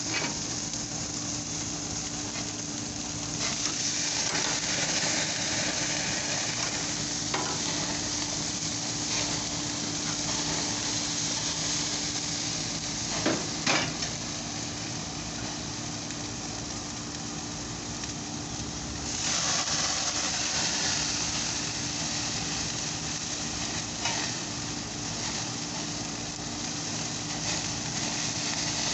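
Pork ribs sizzling on a gas grill in a steady hiss that swells louder for a few seconds at a time, with a few sharp clicks of metal tongs against the grate, most of them just before halfway, as the racks are turned.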